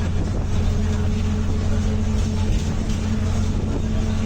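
Mercedes-Benz OF-1722M bus under way, its engine running with the differential's whine (its 'ronco') held as one steady tone from just after the start.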